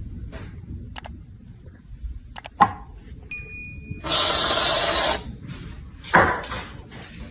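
Aerosol can of Reddi-wip whipped cream spraying: a loud steady hiss about a second long, starting about four seconds in. A sharp knock comes a little before it.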